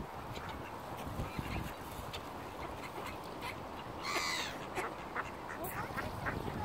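Mallard ducks quacking in many short calls, with one louder, longer call about four seconds in.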